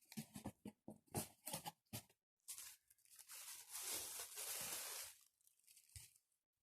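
Packaging being handled and unwrapped: a quick run of crinkles, then a longer rustling tear about halfway through, and a soft knock near the end.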